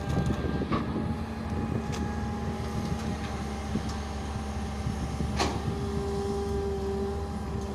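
Hitachi UH083 long-reach excavator working, its diesel engine a steady drone under load. A sharp click about five seconds in, followed by a higher steady tone for about two seconds.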